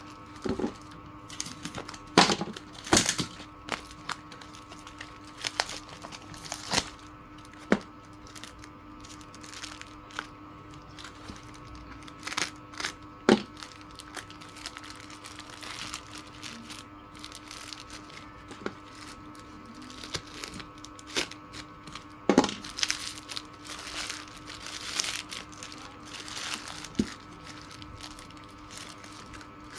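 Irregular sharp clicks, cracks and crinkling from plastic parts being handled and pried during work on a speaker, a few loud snaps among softer ones. Steady tones run underneath.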